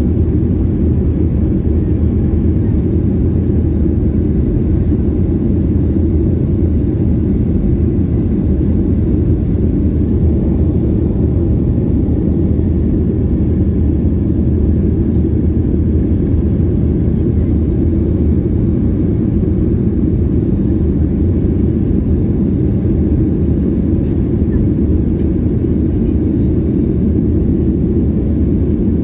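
Steady cabin noise of a Boeing 737-800 in flight, heard from inside at a window seat: an even, low rush from its CFM56 engines and the airflow past the fuselage.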